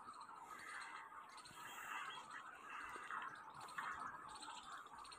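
Faint outdoor ambience: a soft, even hiss with no distinct event standing out.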